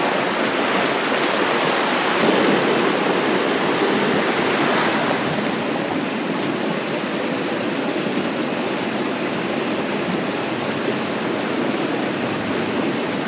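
Shallow rocky river rushing over stones and small rapids close by, a steady, full rush of water.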